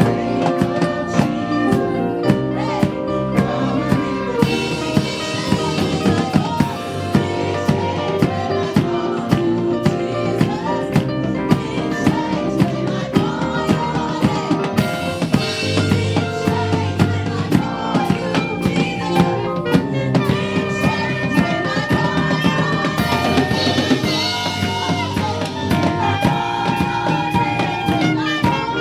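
Live gospel band music with a drum kit keeping a steady beat, with singing over it.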